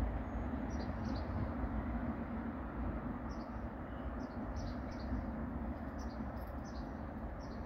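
Small birds giving short high chirps, several in quick pairs, over a steady low background rumble.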